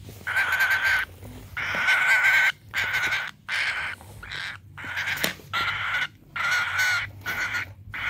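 Cockatiel giving a steady series of harsh, raspy calls, about one a second, each up to nearly a second long with short gaps between.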